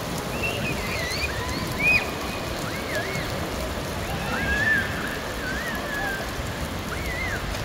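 Steady rain falling on a wet paved courtyard. High, swooping chirps sound over it at intervals, loudest about two seconds in and again around four and a half seconds.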